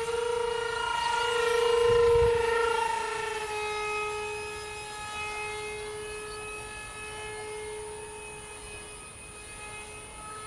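Twin 64mm electric ducted fans of a Dynam A-10 RC jet whining in flight. The whine is loudest as the plane passes about two seconds in, then drops in pitch and fades as it flies away.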